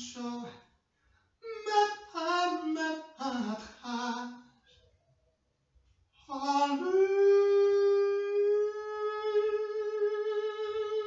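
A man's voice singing unaccompanied into a handheld microphone: a short phrase of several stepped notes, a pause, then one long held high note that rises slightly near the end.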